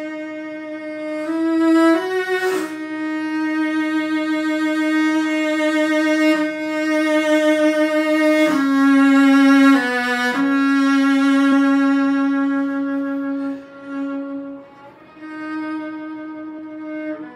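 Unaccompanied cello, bowed, playing a slow melody of long held notes with vibrato, dropping to a softer passage near the end.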